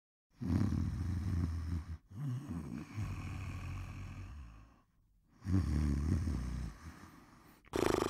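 A person snoring: long, low rattling snores, one breath after another, with short pauses between them and a new snore starting near the end.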